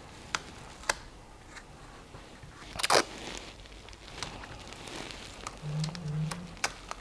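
Stencil paper sheets being handled and fixed together: scattered sharp clicks and crinkles of paper, the loudest about three seconds in.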